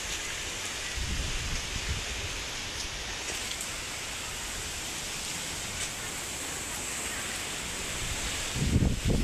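Storm weather outdoors: a steady rushing hiss of wind and possibly light rain, with gusts buffeting the microphone about a second in and again, louder, near the end.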